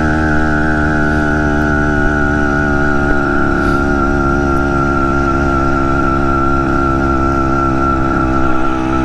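BT100 motorized-bicycle engine running steadily under load on a hill climb, its pitch sagging slowly as it works.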